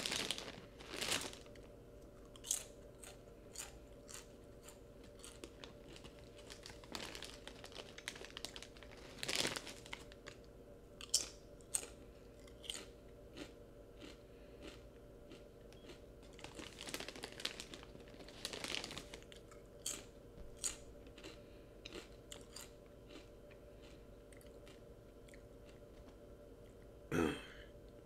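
Potato chips being eaten from a plastic chip bag: scattered, faint crinkling of the bag and crisp crunches of chewing.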